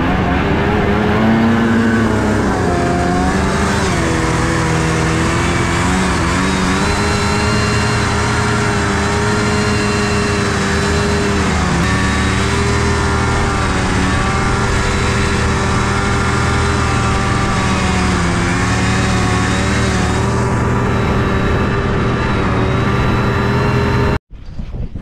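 Snowmobile engine running under load in deep snow, its pitch rising and falling as the throttle changes. The sound cuts off abruptly near the end.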